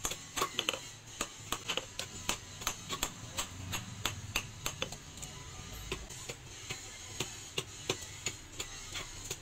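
Hand hammer striking a red-hot steel hammer head on an anvil, forging the head of a small claw hammer: sharp metallic blows, about three a second at first and a little slower later.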